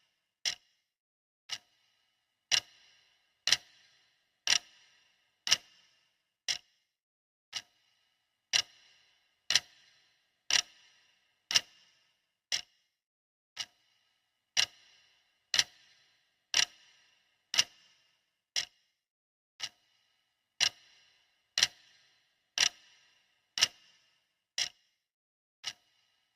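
Clock ticking steadily, once a second. Each tick is a sharp click with a short ringing tail, and some ticks are louder than others.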